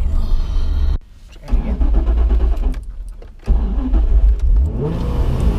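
Supercharged Nissan 350z's V6 engine running loud, dropping away sharply about a second in and again around three seconds, then revving up with a rising pitch near the end.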